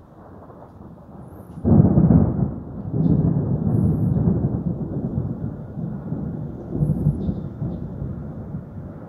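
Thunder: a sudden loud clap about two seconds in, then a long low rolling rumble that swells again twice and slowly dies away.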